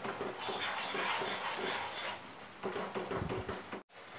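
A metal spoon stirs and scrapes a thick, sticky milk-powder mixture around a kadhai in uneven rubbing strokes as the peda dough thickens. The sound cuts out briefly near the end.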